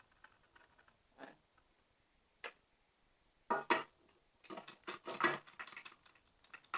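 Scattered light clicks and taps from handling a plastic slime pot and utensils, a few at a time with short gaps between them.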